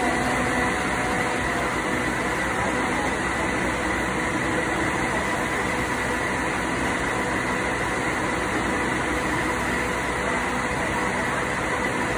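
Steady drone of running factory machinery with a few held tones over it, unchanging throughout.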